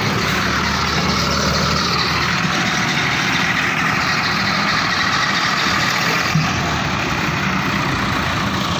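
An engine running steadily at idle, a continuous low hum under an even wash of noise.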